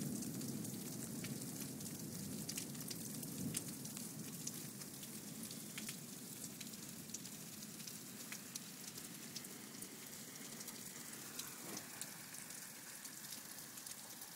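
A low thunder rumble fades out over the first few seconds. After it comes a steady hiss of winter precipitation falling on surfaces, full of small ticks. About three-quarters of the way through there is a brief falling tone.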